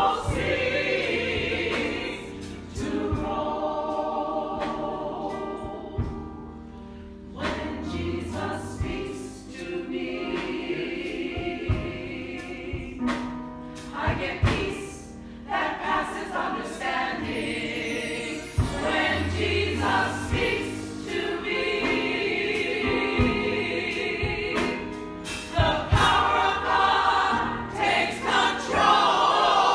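Church congregation singing a gospel song together, with sharp claps or percussive hits through the singing.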